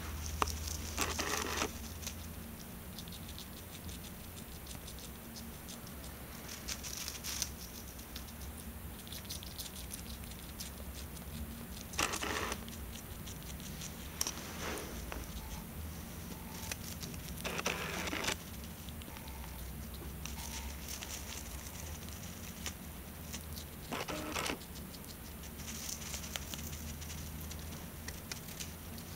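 A hamster chewing a crisp bok choy stalk: a continual quick patter of small crunching nibbles, with a louder crunch every few seconds.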